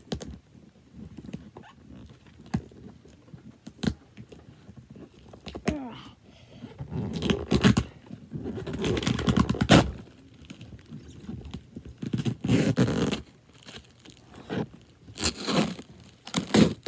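Cardboard box being handled and scraped at while it is opened, with scattered clicks and several bursts of scraping and rustling, the loudest lasting from about seven to ten seconds in.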